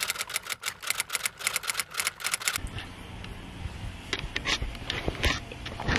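Typewriter keystroke sound effect: a rapid, even run of clacking keys, several a second, stopping about two and a half seconds in. After that a low room hum, with a few light knocks near the end.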